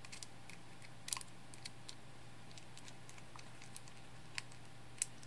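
Small precision screwdriver turning a tiny screw into a laser-cut wooden tail piece and wheel, giving faint, irregular clicks and ticks.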